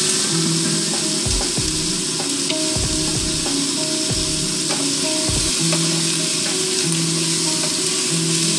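Food sizzling as it fries in a pan, stirred with a wooden spatula. There are a few dull knocks in the first half.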